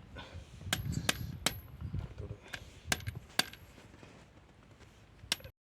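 Light metallic clinks and clicks, about seven spread out, some with a short high ring after them, over low handling rustle: metal cable lugs being worked onto the ends of thick cable.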